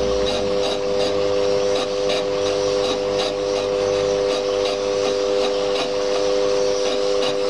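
Metal lathe running a fly cutter across the face of a cylinder casting, with a steady whine. The cutter strikes the work once per turn, about three times a second.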